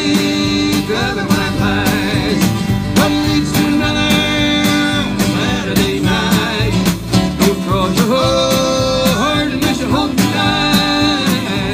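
A live band playing an instrumental passage: a fiddle carries the melody with held and sliding notes, over a strummed acoustic guitar and a steady drum-kit beat.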